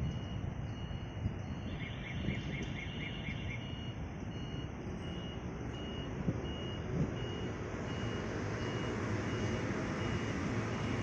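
Street traffic noise from passing vehicles, with a short electronic beep repeating evenly about every two-thirds of a second. About two seconds in there is a quick run of higher pips.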